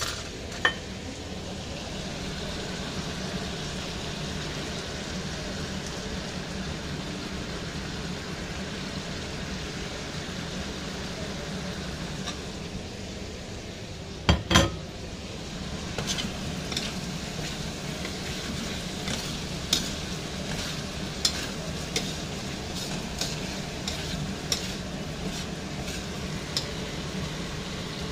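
Chicken wings frying in oil in a steel wok, a steady sizzle, with a metal spatula clicking and scraping against the wok as they are stir-fried with bell peppers. A couple of loud knocks come about halfway through.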